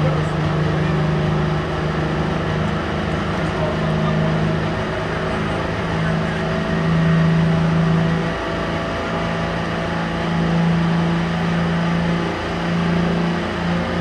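Pulling tractor's engine running steadily while hooked to the sled at the start of the pull, its pitch wavering slightly. Crowd murmur is underneath.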